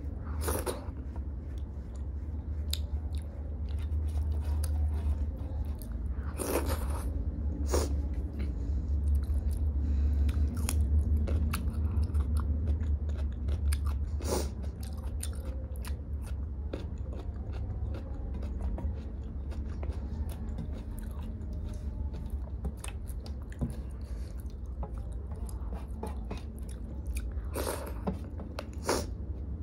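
Close-miked chewing and mouth sounds of dal and rice eaten by hand, with soft wet clicks throughout and a few sharper crunches, over a low steady hum.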